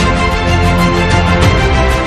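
Background music track with a steady beat.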